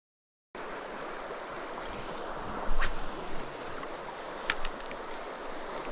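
Steady rush of flowing river water, starting abruptly about half a second in, with two brief sharp sounds about three and four and a half seconds in.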